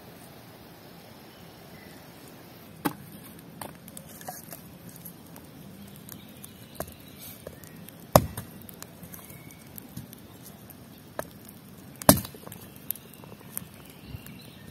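Scattered sharp clicks and knocks of eating utensils against a plate, the loudest about three, eight and twelve seconds in, over a faint steady outdoor background.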